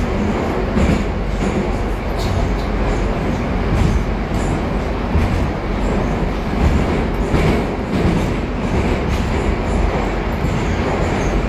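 Interior noise of a moving 81-740 "Rusich" articulated metro train: a steady rumble of wheels on the rails and running gear, with scattered short clicks.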